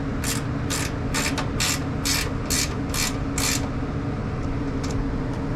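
A ratcheting mechanism worked in short, even strokes, about two a second, stopping about three and a half seconds in, over a steady low machine hum.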